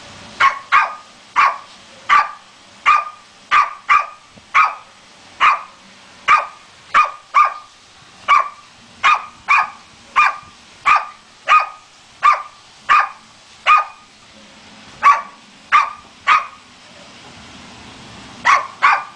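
A small papillon barking excitedly at a glass door: about two dozen sharp, high-pitched barks, often in quick pairs, with a pause of about two seconds near the end. It is waiting for the dog inside to come out.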